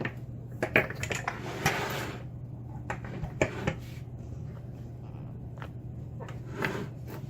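Scattered small clicks and knocks, with a short scrape about a second and a half in, from the picked dimple lock cylinder and metal picking tools being handled, over a steady low hum.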